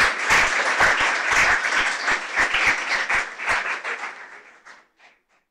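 Audience applauding, the clapping thinning out and fading away to silence about five seconds in.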